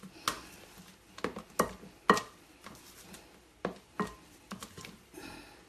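A mixing spoon clinking and tapping irregularly against a glass mixing bowl as it stirs a thick cream of egg yolk, cheese and beaten egg whites. Short, sharp knocks come every fraction of a second to a second, with soft scraping between them.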